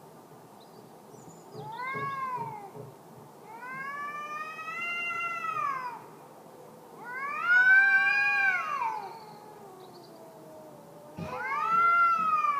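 Cats caterwauling: four long, drawn-out yowls, each rising and then falling in pitch, the last two the loudest.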